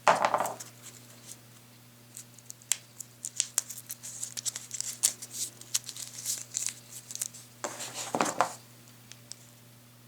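Scissors snipping cardboard packaging tabs, and paper and card crinkling and rustling as the packaging is opened and the folded instructions are unfolded. There is a louder rustle at the start and another about eight seconds in, with scattered sharp snips and crackles between.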